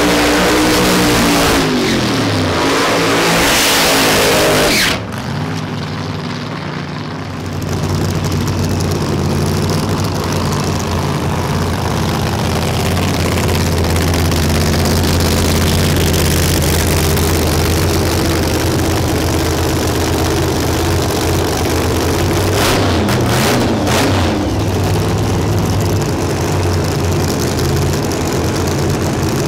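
Top Alcohol Funny Car engines. At first one revs hard, its pitch rising and falling, with a loud hiss on top during a burnout, and the sound cuts off about five seconds in. After that the engines idle steadily, with a short blip of the throttle a little before the end.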